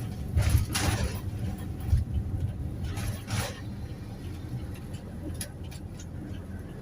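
Toyota Hiace Commuter van driving in city traffic: a steady low rumble of engine and road noise. Two louder rushing swells come about a second in and about three seconds in.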